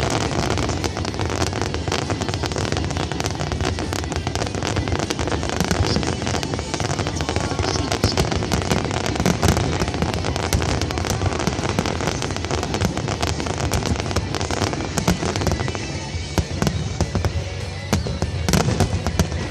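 Fireworks display going off in a dense barrage: a rapid, continuous crackle of many bangs and pops, over music.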